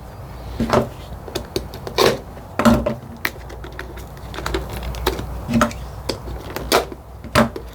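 Irregular clicks and taps of a plastic retail package being handled and opened by hand, a few of them sharper than the rest, over a low steady hum.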